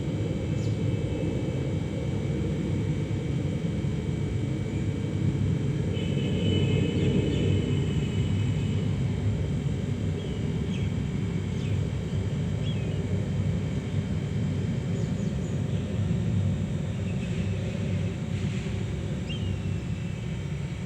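Steady low outdoor rumble, with a few short, high bird calls several seconds apart.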